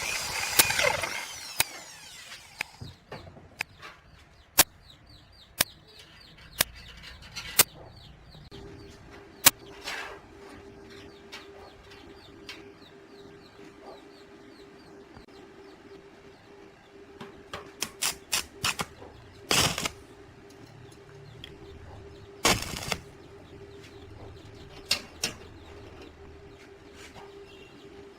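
An angle grinder dying away as it spins down, then scattered sharp clicks and knocks of tools and wood being handled, with a few quick clusters of taps. A faint steady hum comes in about eight seconds in.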